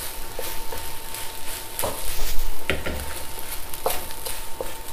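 Fried rice sizzling in a hot wok as a wooden spatula stirs and scrapes it, with irregular knocks of the spatula against the pan. A faint steady high tone runs underneath.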